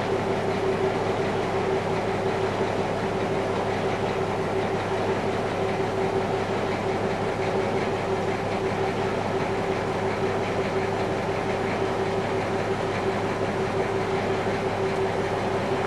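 River boat's engine running at a steady cruise: a constant drone with a held hum note, over an even rushing noise.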